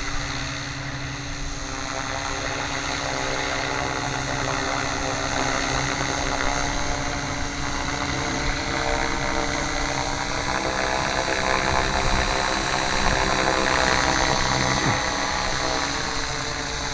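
Gaui radio-controlled helicopter hovering inverted at low height: a steady whine from the rotor and drivetrain over the beat of the blades, growing slightly louder toward the middle and later part.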